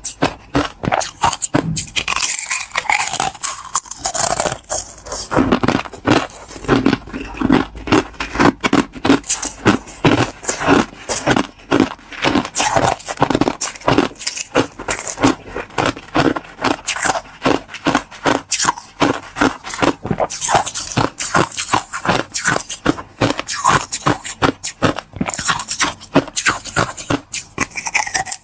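Close-miked crunching of clear ice in the mouth: rapid, crackly bites and chewing, several crunches a second.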